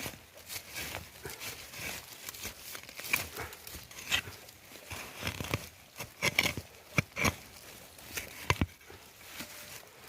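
Irregular handling noises: rustling and crinkling with many scattered sharp clicks and snaps.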